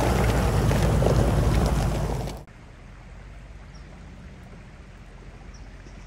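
Range Rover Sport idling while standing in a shallow stream, with water running around it. About two and a half seconds in, the sound cuts off suddenly to a much quieter, steady rush of stream water.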